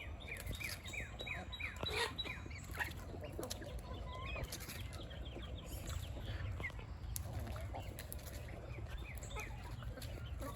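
Chickens clucking and chirping, with quick runs of short, high, falling chirps, over a steady low rumble.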